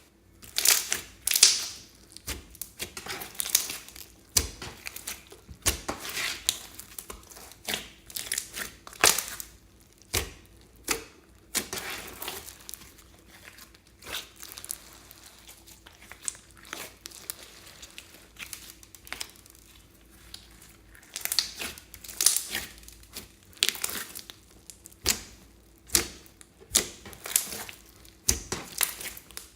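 Glossy slime being squished, stretched and folded by hand: irregular sticky clicks and crackling pops, one or two a second, with a quieter stretch in the middle.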